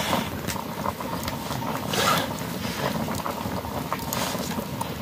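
Steady wood-fire crackle and the rolling boil of a pot of rice over the flames, with a few faint clicks as a knife trims a bamboo stalk.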